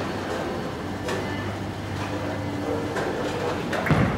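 Bowling alley din: a steady low rumble of balls rolling, with sharp clatters from other lanes. Near the end comes a thud as a bowling ball is laid down on the lane and starts rolling.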